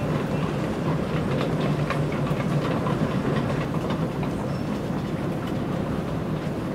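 Airport moving walkway running underfoot: a steady low rumble with scattered light clicks.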